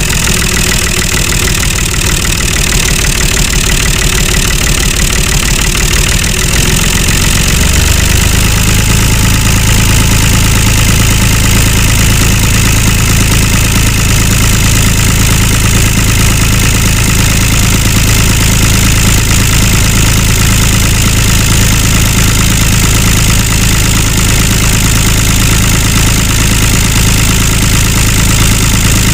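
Tractor engine running steadily; about seven seconds in its low note changes and then holds an even hum.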